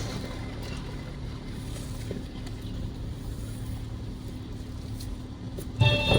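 Low, steady rumble of a car's engine heard from inside the cabin. Music starts up again near the end.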